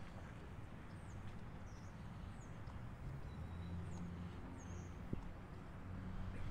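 Faint outdoor waterfront ambience: a steady low hum with a few short, high bird chirps scattered through it.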